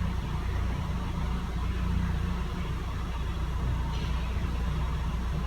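Renault Logan's 1.6-litre eight-valve engine idling steadily while still warming up in open loop, with its MAP sensor circuit faulty and reading a manifold pressure close to full throttle.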